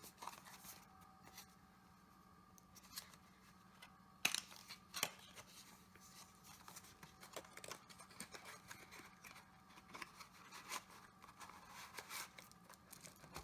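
Cardboard knife packaging being opened by hand: quiet scraping and rustling, with two sharp clicks about four and five seconds in.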